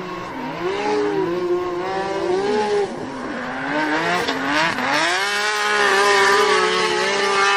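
Racing car engine revving, its pitch swinging up and down again and again, with tyre squeal hiss over it; from about five seconds in it holds a steadier high rev.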